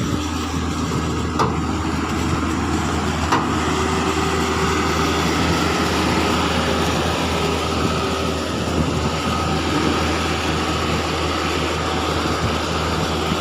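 Diesel engines of a mini excavator and a dump truck running steadily as the excavator pushes the truck through mud, with a couple of light knocks in the first few seconds.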